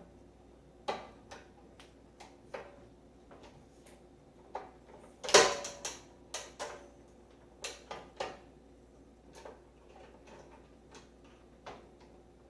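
Scattered small clicks and taps of a microwave door latch and its spring being worked back into the door frame by hand, with a louder clatter of several quick clicks about five seconds in.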